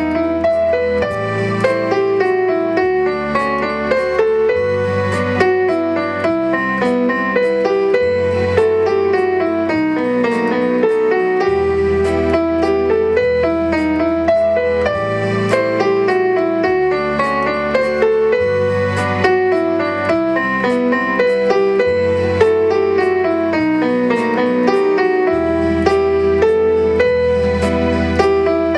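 Yamaha digital piano played with a piano sound: a flowing melody and chords over bass notes that change every second or two.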